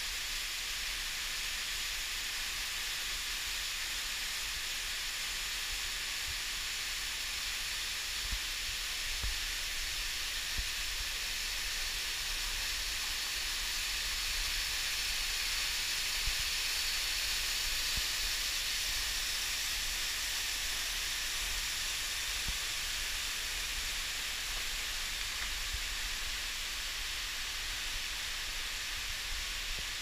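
Waterfall in the Kesselbach gorge splashing down the rock face into its pool: a steady rushing hiss.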